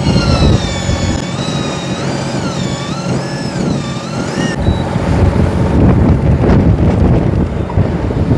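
Electric fishing reel winding in line, a whine whose pitch rises and falls repeatedly before cutting off abruptly a little past halfway, over the rumble of the boat and wind on the microphone.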